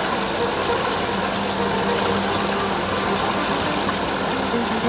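Small motorboat's engine running steadily in gear ahead, a low even hum, with water rushing past the hull and wind noise.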